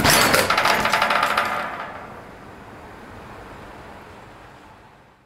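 BMX bike rolling on a street ledge with a rapid clicking, fading out over the next few seconds.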